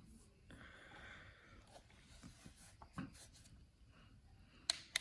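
Quiet handling of a flashlight: a soft rustle about a second in, then a click, and two sharp clicks close together near the end.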